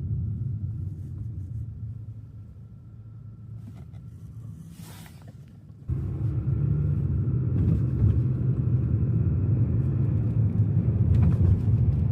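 Car driving, heard from inside the cabin as a steady low rumble of engine and road noise. It fades down in the first half, then jumps back up suddenly about six seconds in.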